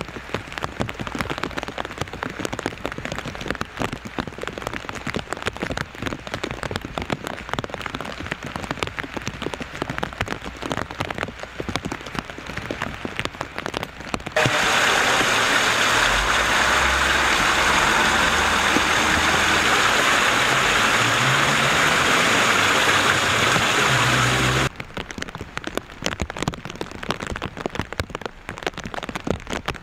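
Steady rain, a dense patter of raindrops. About halfway in, a louder, even rush of rain sets in abruptly and lasts about ten seconds before it stops sharply and the patter returns.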